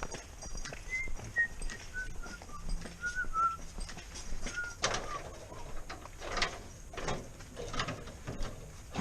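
A small bird chirping: a string of short high notes, each a little lower than the last, then five or six separate knocks.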